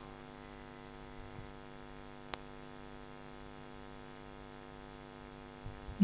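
Steady electrical mains hum from the church sound system, with a single sharp click a little past two seconds in.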